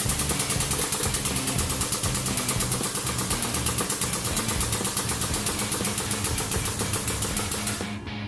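Hydraulic press pump running steadily under load with a rapid, even pulsing. The high hiss drops out for a moment near the end.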